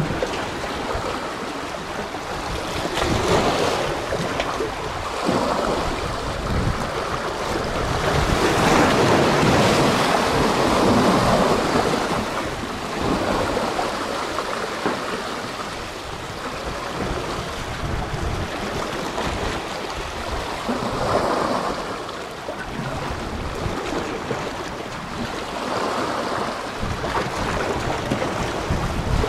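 Sea waves washing and breaking, swelling and easing every few seconds, with wind buffeting the microphone.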